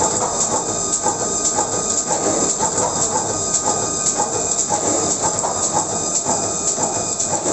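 Cavalleri CT12 paper sheeter running, cutting a paper web into sheets in a fast, regular rhythm with steady mechanical clatter and hiss.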